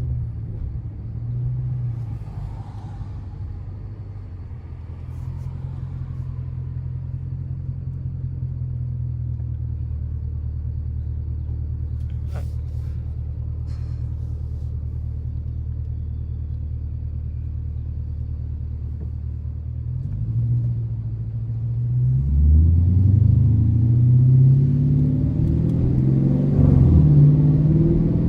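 Dodge R/T's V8 engine running steadily at low revs, then revving up in rising pulls and getting louder from about twenty seconds in as the car accelerates.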